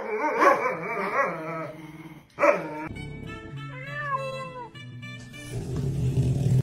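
Dog barking and yipping during roughly the first two seconds, then music with held notes and a gliding melody.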